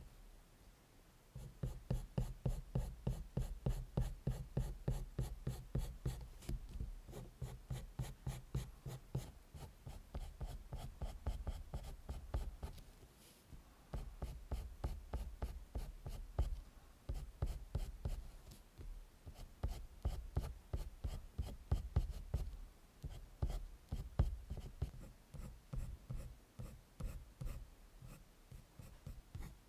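Colored pencil scratching across drawing paper in quick, short, repeated strokes, about four or five a second, as fur strands are hatched in. The strokes pause briefly about a second in and again near the middle.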